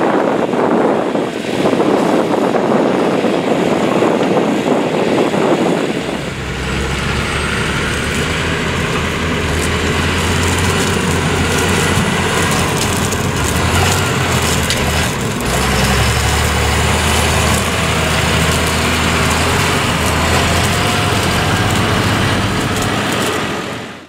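Semi-trailer truck driving across a soft field with wind rushing on the microphone. About six seconds in this changes to the steady low drone of a large farm tractor's diesel engine under load, towing a semi-trailer truck that cannot get out of the field on its own. The sound fades out near the end.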